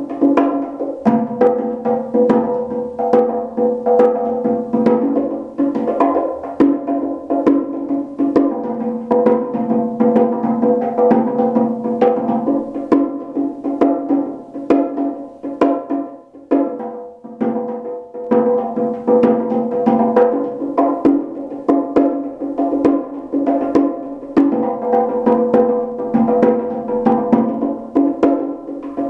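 Pair of bongos played with bare hands in a fast, continuous improvised rhythm of dense strokes.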